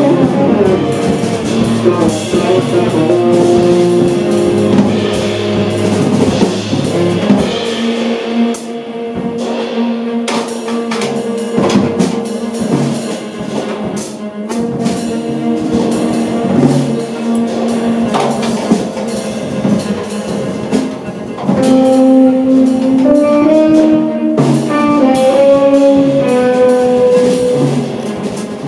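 Live jazz played by tenor saxophone, cello, electric guitar and drum kit, with sustained melodic notes over cymbal strokes. The music eases off in the middle and grows louder about two-thirds of the way through.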